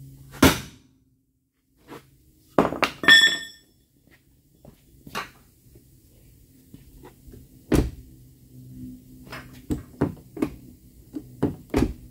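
Hammer blows on a homemade iron bar held against a car door hinge, knocking the hinge over to widen the gap between the doors. A sharp strike comes about half a second in, a quick cluster of strikes with a metallic ring around three seconds in, a heavy thud near eight seconds, and lighter knocks near the end.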